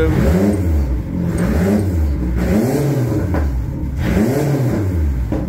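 Yamaha 115/80 jet outboard revved up and back down about four times in quick throttle blips, picking up cleanly each time: a check that the throttle is responsive.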